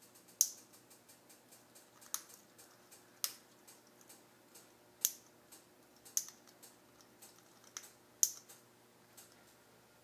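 Eclectus parrot's beak crunching bits off a dry, uncooked pasta noodle: sharp, crisp cracks at irregular intervals of roughly a second, some louder than others.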